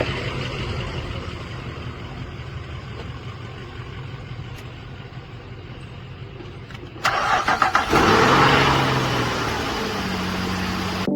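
A steady mechanical hum for about seven seconds. Then a car engine cranks with rapid pulses, catches and runs louder before settling toward a steadier idle. The engine is being started with a portable jump starter.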